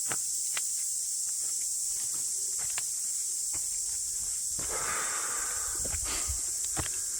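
Steady high-pitched insect chorus, typical of summer cicadas in New Zealand bush, with scattered footsteps on the trail. There is a short breathy rush about five seconds in.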